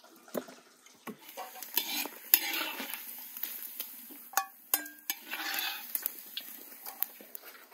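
Food frying with a sizzle in a large metal kazan, while a metal slotted spoon stirs the pieces, scraping and clinking against the pot's side.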